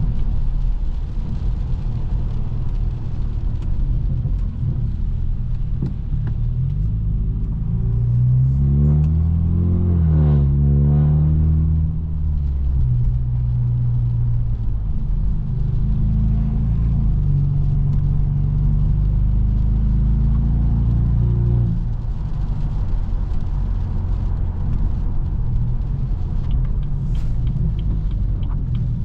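Straight-piped, Stage 2-tuned BMW F30 328i's turbocharged four-cylinder running under way with a deep exhaust drone. It revs up about eight seconds in and eases off a few seconds later, then cruises steadily and settles to a lower drone about two-thirds of the way through.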